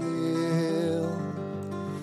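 Soft, slow background music with sustained held notes.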